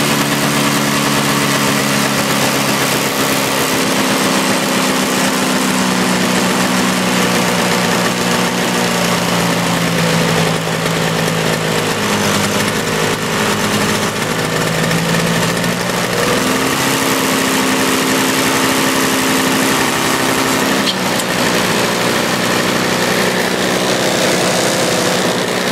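Toro CCR 2450 snowblower's small two-stroke engine running steadily and smoking heavily. Its speed sags and hunts for several seconds from about ten seconds in, then picks back up.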